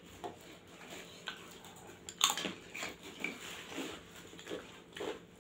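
Close-up eating sounds of people eating rice and dal with their hands: soft chewing with scattered small clicks and crunches, one sharper crunch about two seconds in.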